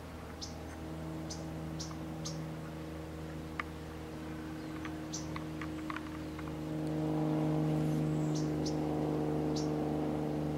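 A steady low mechanical hum that grows louder about two-thirds of the way in, with scattered short high chirps and a few faint clicks.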